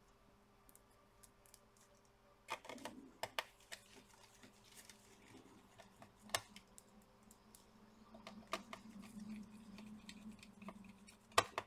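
Faint clicks, taps and light scraping of a small precision screwdriver and screws as a laptop cooling fan is set in place and screwed down. There is a sharper click about six seconds in and another near the end.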